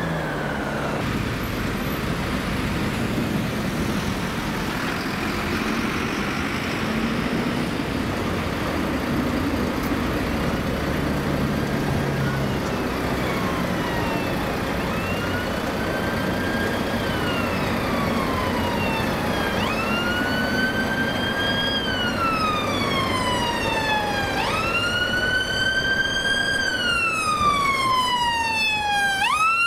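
Town traffic running, with an approaching ambulance siren growing louder from about halfway through. It is on a slow wail that rises quickly, holds high, then falls slowly, about once every five seconds.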